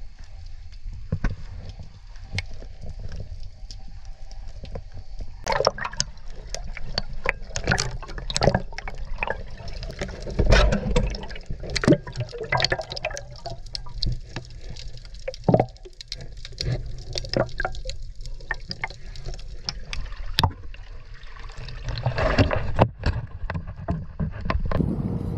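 Water sloshing and gurgling around a camera held at and just under the surface. From about five seconds in come many sharp, irregular splashes and bubbling.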